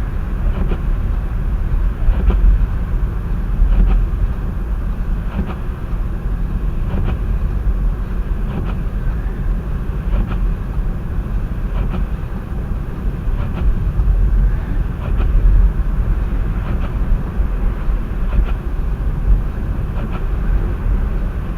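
Steady low rumble of a moving vehicle, with faint ticks recurring about every second and a half.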